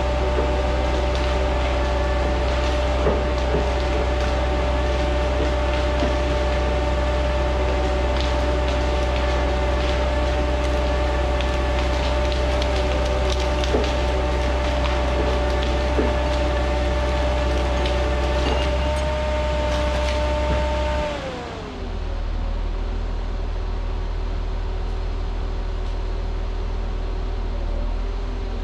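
Diesel engine and winch of a converted Rottne H20 forestry machine running hard with a steady whine while it hauls a log in, with occasional clicks of wood. A little after twenty seconds the whine glides down and the engine drops back to a lower, quieter run.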